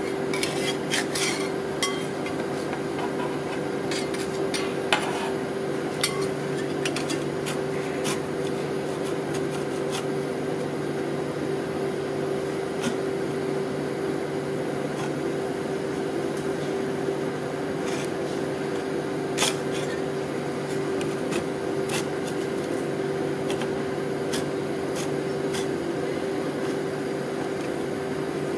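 Steel paddle spatula scraping frozen sticky rice ice cream off a steel cold plate and pushing it into rolls, with scattered clicks and taps of the blade on the metal. Under it runs a steady hum from the ice roll machine's cold plate.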